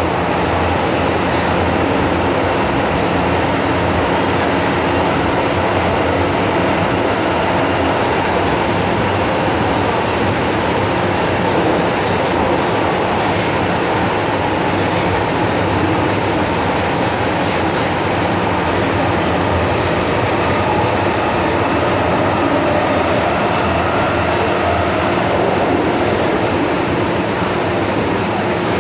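MTR M-train electric multiple unit running at speed through an underground tunnel, heard from inside the car: a loud, steady rumble of wheels on rails and traction noise that holds unchanged throughout.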